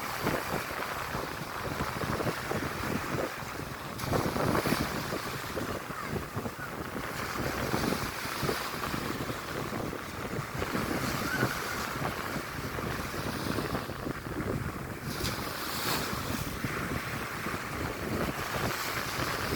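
Strong wind buffeting the microphone over surf washing onto a beach, with the waves swelling up a few times.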